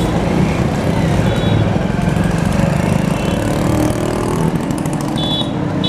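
Steady street traffic noise dominated by a motor engine running close by, with a brief high-pitched tone near the end.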